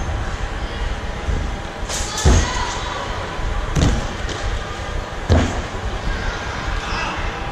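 A kung fu performer's body, hands and feet slapping and thudding onto a foam floor mat during Shaolin dog-style ground moves and rolls: about five sharp impacts at irregular intervals of one to two seconds, over a steady background hubbub.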